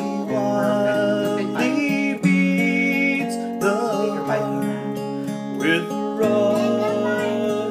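Martin D-45 steel-string dreadnought acoustic guitar fingerpicked: a melody over ringing bass notes, steady and unaccompanied.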